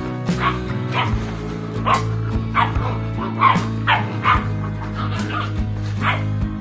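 Puppies yipping and barking in a string of short, sharp calls, about one or two a second, as they play-fight. Steady background music runs underneath.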